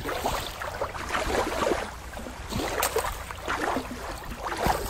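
Shallow water lapping and trickling over rocks, with many small, irregular splashes.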